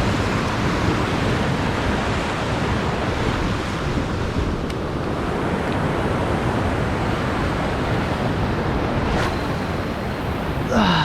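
Ocean surf washing and breaking against the rocky shoreline, a steady roar of water with wind buffeting the microphone. A short vocal exclamation near the end.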